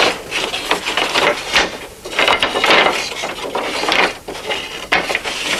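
Thin flat spruce slats clattering and scraping against each other and the wooden rack as they are pulled out of a stack: a quick run of knocks with longer sliding rubs in between.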